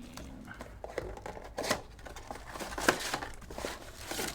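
Trading cards and their plastic sleeves being handled, with soft rustles and a few light clicks and taps, the sharpest about three seconds in.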